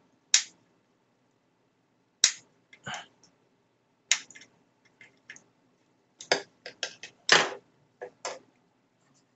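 Sharp plastic clicks and knocks from a screwdriver working apart a Bosch cordless drill battery pack's case and freeing the cell pack. A handful come spaced out at first, then a quicker run of clicks and rattles about six to eight seconds in.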